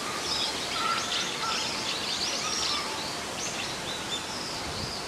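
Wild birds chirping and twittering: many short, high calls, some falling in pitch, over a steady outdoor hiss.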